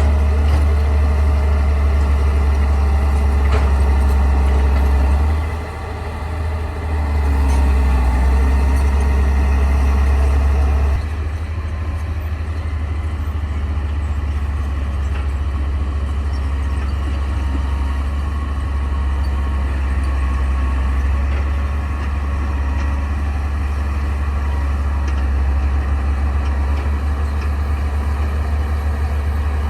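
Bulldozer's diesel engine running with a deep, steady drone; it dips briefly about five seconds in, comes back up, then settles lower about eleven seconds in.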